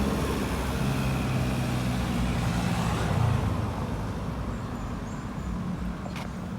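Road traffic: a motor vehicle's engine running close by, fading away after about three seconds.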